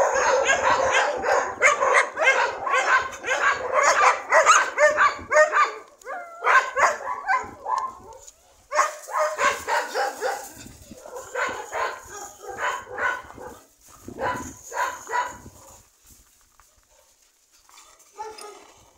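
Several dogs barking in rapid, overlapping volleys for the first several seconds, then in shorter bursts that die away near the end.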